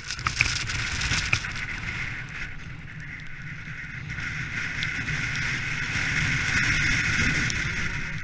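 Continuous rushing noise of a two-dog sled moving fast over snow: wind buffeting the sled-mounted camera's microphone with a low rumble, and a steady hiss of snow under the sled, with a few clicks about a second in.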